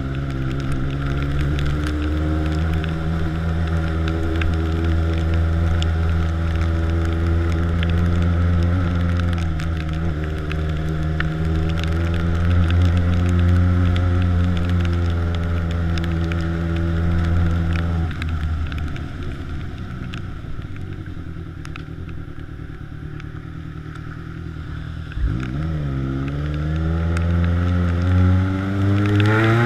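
Yamaha XJ6's inline-four engine through a 4-into-1 straight-pipe exhaust, running steadily while cruising. About two-thirds in the engine drops back to low, quiet running off the throttle, then climbs in pitch again as it accelerates near the end.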